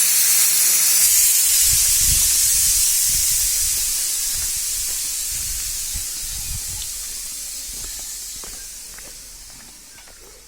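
A steady high hiss, loudest at the start and fading away gradually over about ten seconds, with a few low thumps in the first half.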